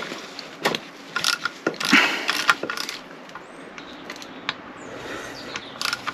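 Irregular metallic clicks, clinks and short scrapes of hand tools and small fasteners being worked on the motorcycle's alternator stator and ignition pickup, busiest in the first three seconds and again near the end.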